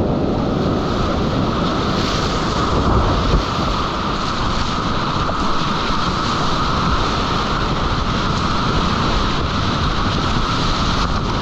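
Steady, loud rush of whitewater rapids heard close up from a kayak on the river.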